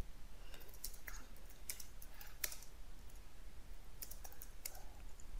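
Computer keyboard keys being typed, about a dozen separate clicks in short, irregular runs with pauses between them.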